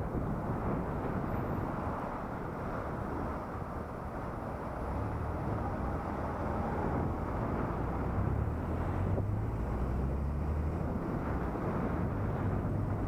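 Wind and road noise rushing past a helmet-mounted action camera while riding, with a low engine hum that comes in about five seconds in and holds steady.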